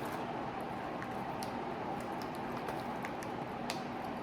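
Quiet room tone: a steady hiss and faint hum, with a few faint short clicks.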